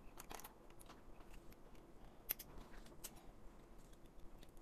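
Faint scattered clicks and scrapes of a utility knife blade picking and cutting support material out of a groove in a 3D-printed plastic part, with one sharper click about two seconds in.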